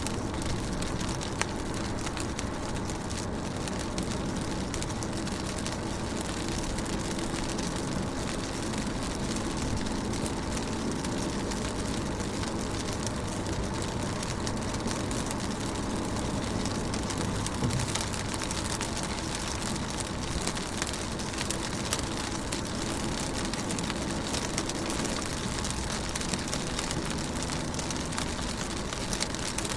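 Steady rain falling on a car window, with many small, sharp drop ticks over a low, even rumble.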